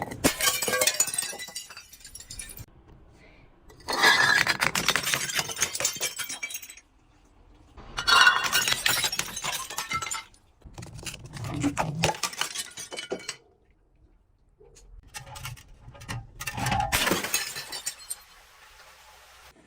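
Glass bottles breaking and crunching in about five separate bouts, each two to three seconds of dense crackling and sharp cracks, with quiet gaps between.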